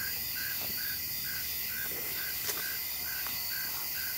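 Crickets chirping: an even, rhythmic chirp about three times a second over a steady high insect trill.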